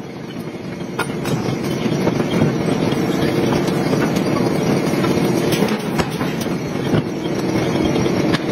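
Forging machinery running with a steady, grinding mechanical rumble and a few sharp metallic clicks.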